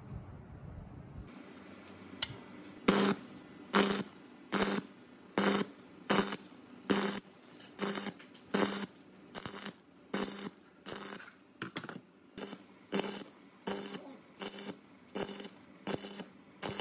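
Electric arc welding with a stick electrode on a cracked cast-metal fan: the arc buzzes in regular bursts, about four every three seconds, from about three seconds in.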